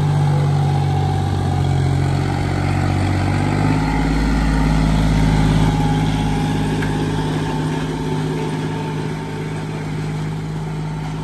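John Deere tractor's diesel engine running steadily under load while pulling a disc harrow, its deep rumble swelling through the middle and easing off near the end.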